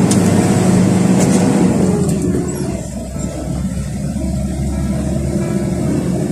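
Truck engine running at road speed, heard from inside the cab with tyre and road rumble; about two and a half seconds in its note slides lower and drops a little in loudness, leaving a deeper rumble.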